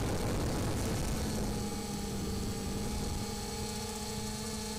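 Multirotor drone's electric motors and propellers in flight: a rushing noise at first that settles, about a second in, into a steady hum of several held tones.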